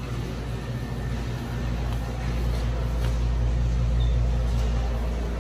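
Steady low mechanical rumble, swelling a little toward the middle and easing near the end.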